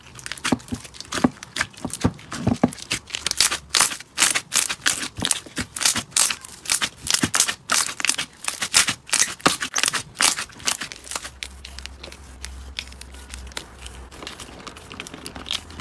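Slime being squeezed and pressed by hand: a dense run of crackling, popping clicks that turns quieter about eleven seconds in.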